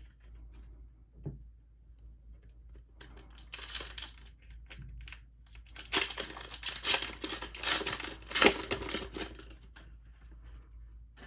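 Packaging of a Pokémon TCG collection box being torn open and crinkled: a short tear about three seconds in, then a longer stretch of ripping and crinkling from about six seconds, loudest about eight and a half seconds in.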